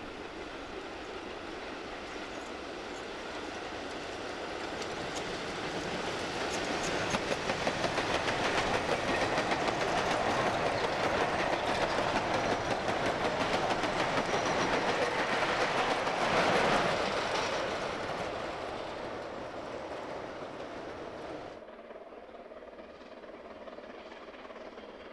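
Narrow-gauge slate wagons of a gravity train coasting past without a locomotive, their wheels clattering and rumbling over the rail joints. The sound grows louder as the wagons approach, is loudest about three-quarters of the way through, then fades, and drops suddenly to a much quieter background near the end.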